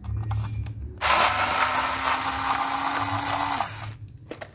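Electric screwdriver running for about two and a half seconds, backing out the last screw that holds a power transistor to a car amplifier's heatsink; its motor tone winds down as it stops, followed by a few light clicks.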